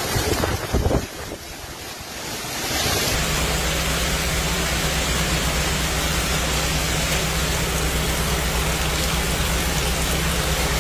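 Storm: a steady roar of a heavy downpour, with a low rumble of wind buffeting the microphone. It eases briefly after the first second, then comes back louder and holds steady from about three seconds in.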